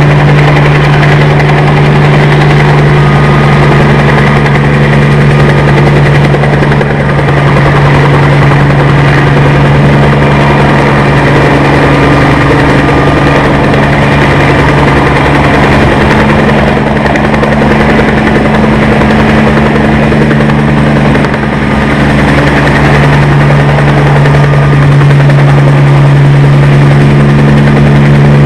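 Bell 47 G2 helicopter's six-cylinder Lycoming piston engine running steadily at ground idle, a loud, even low engine note.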